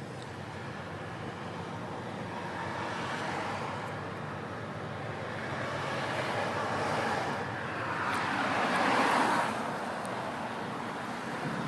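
Motor vehicle noise: a steady rumble with a rushing sound that swells and fades several times, loudest about nine seconds in.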